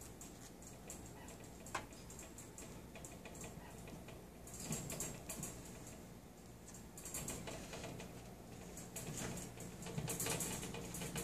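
A pet kinkajou moving about at play: rapid, irregular small clicks and scratches, bunching into busier flurries about halfway through, around two-thirds of the way and near the end.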